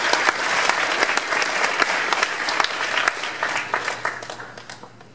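Audience applauding, a dense patter of many hands clapping that thins out and fades away over the last second or so.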